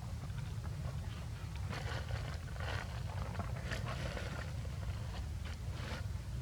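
A handful of short rustling, scraping sounds, clustered between about two and six seconds in, over a steady low rumble.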